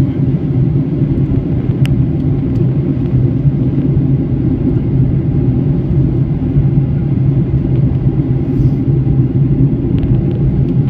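Steady cabin noise inside a Boeing 737-800 on descent, heard from a window seat: the engines and the airflow past the fuselage make an even rumble with a low steady hum under it.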